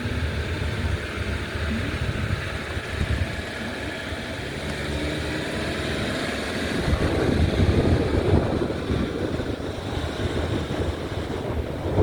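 A vehicle running, a steady low rumble, with wind buffeting the microphone that grows louder and gustier about seven seconds in.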